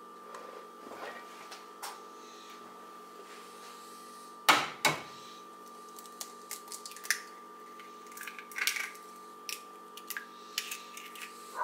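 Eggshell cracking against a hard edge: two sharp knocks about four and a half seconds in, the loudest sounds here, then small clicks and taps of shell being broken open over a cast-iron griddle.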